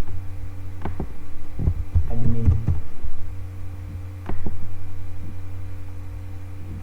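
Scattered keyboard and mouse clicks over a steady low electrical hum.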